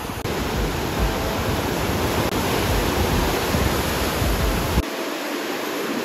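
Ocean surf breaking and washing in over a shallow sandy shore: a steady rush of water, with wind buffeting the microphone until about five seconds in.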